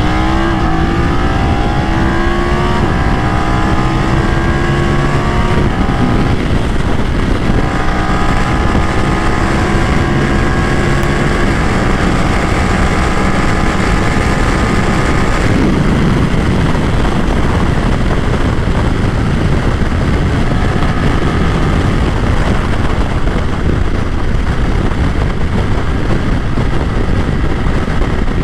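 BMW F 900 XR's parallel-twin engine accelerating hard at full throttle, its pitch climbing in each gear, with upshifts about 6, 12 and 15 seconds in, during a top-speed run. A heavy rush of wind noise grows over the engine and covers most of it in the second half as speed builds.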